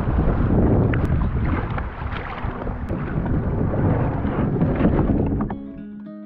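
Strong wind buffeting the microphone over rough, choppy sea water around a kayak, with a few sharp knocks. Acoustic guitar music comes in near the end as the wind and water fade.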